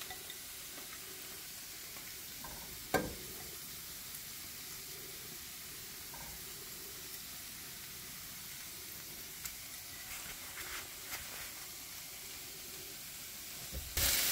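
Strips of poblano chile sizzling steadily in a little hot oil in a stainless steel skillet, with a single knock about three seconds in and the sound growing louder right at the end.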